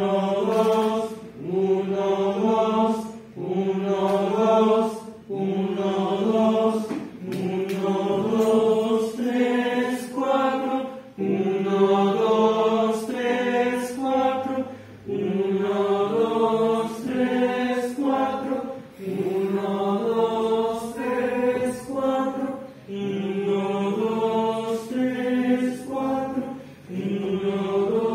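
A choir singing slow, chant-like phrases together: held notes of a second or two each, changing pitch step by step, with brief breaks between them for breath.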